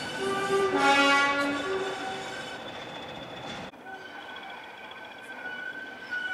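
Diesel locomotive horn sounding for about two seconds, its two tones going high, low, then high again, over the sound of rail traffic. After a sudden cut it gives way to a quieter, steady background with a thin high whine.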